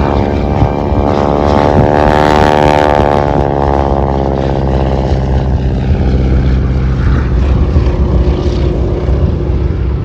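Vintage biplane's engine and propeller passing low overhead: a loud, steady engine drone that peaks about two to three seconds in, then drops in pitch as the plane moves away.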